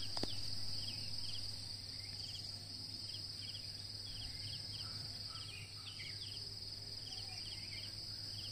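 Insects droning steadily at a high pitch, with small groups of quick chirps repeating about every second, over a faint low hum.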